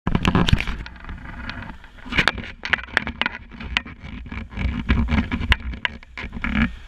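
Wind buffeting a GoPro HERO3+ microphone with a steady low rumble, under many irregular sharp knocks and scrapes that stop shortly before the end.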